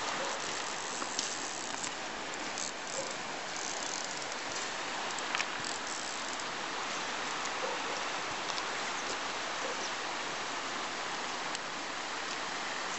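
Shallow river water running over a stony bed: a steady rushing hiss, with a few scattered faint clicks.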